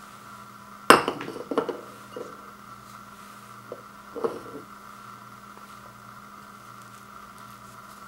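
Tableware being handled on a wood floor: a white bowl and a metal spoon set down with a sharp clatter about a second in, a few smaller knocks and clinks after it, and another knock around four seconds in.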